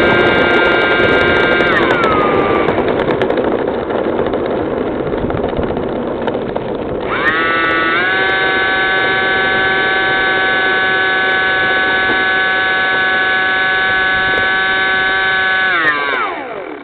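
Electric ducted fans of a Freewing Yak 130 RC jet whining. The pitch drops about two seconds in and the fans run low for a few seconds, then they spool up about seven seconds in and hold a steady high whine before spooling down to a stop near the end.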